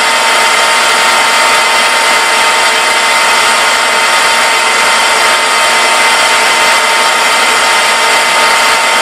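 Metal lathe running steadily while its hand-fed cutting tool turns a taper on a bolt head: an even, loud machining hiss with a fixed whine.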